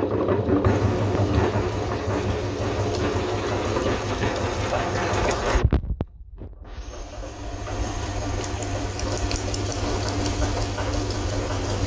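Electric meat grinder running with a steady motor hum and grinding noise. About halfway through it stops abruptly, then starts again and winds back up to speed.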